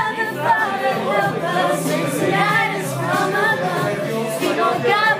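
Young women singing together, recorded on a phone.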